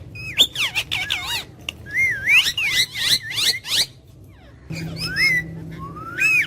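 Pet parrot whistling and chattering: a run of short whistled notes sliding up and down in pitch, a brief pause, then more whistles ending in a long rising whistle.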